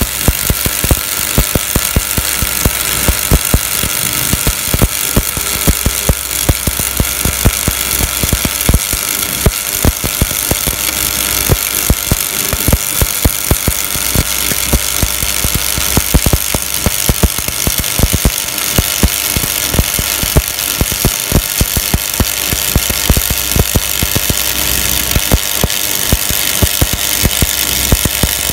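Shielded metal arc (stick) welding: the electrode's arc crackles steadily with a dense, irregular run of sharp pops and a constant sizzle.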